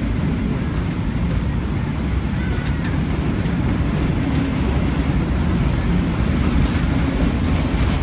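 Red double-deck regional passenger train running alongside on a steel truss railway bridge: a steady low noise with no break.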